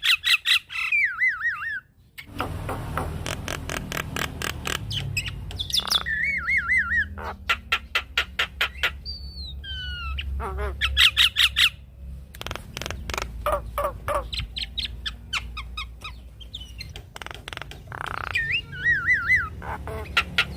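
Javan myna singing: bursts of rapid, harsh repeated notes alternating with short wavering whistles, with a low steady hum underneath from about two seconds in.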